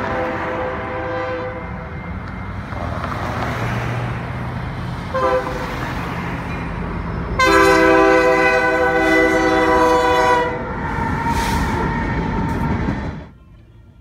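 Diesel freight locomotive's horn sounding for a grade crossing over the rumble of the passing train: a short blast about 5 seconds in, then a loud long blast of about three seconds, a fainter horn after it. The sound cuts off suddenly near the end.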